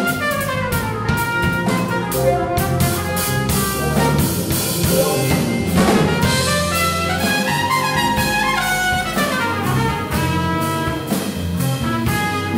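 Jazz quintet playing: a trumpet plays phrases that run up and down over electric guitar, electric piano, electric bass and drum kit.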